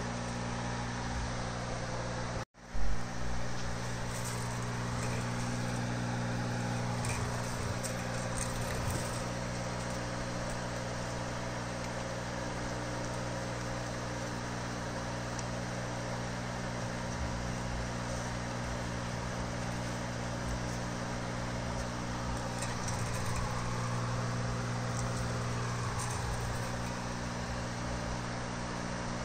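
Steady low machine hum with a background hiss. It cuts out for an instant about two and a half seconds in, followed by a single loud knock.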